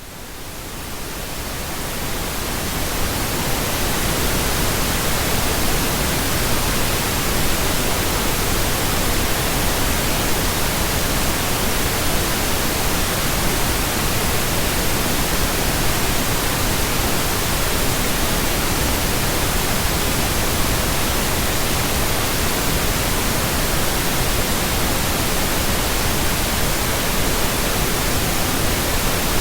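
Synthetic pink noise: an even, steady hiss over all pitches, fading in over the first three or four seconds and then holding level.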